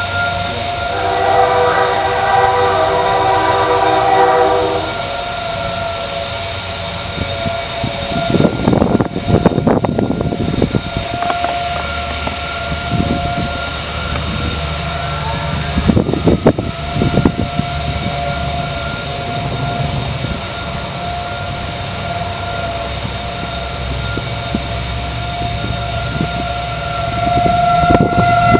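A distant Federal Signal 2001 outdoor warning siren sounds a steady tone. A horn chord of several pitches sounds over it for about four seconds near the start, and gusts of wind hit the microphone a few times.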